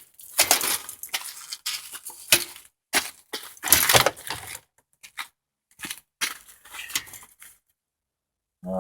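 Bicycle being flipped upside down and handled: irregular clatter, knocks and scrapes from the frame and parts, thinning out near the end.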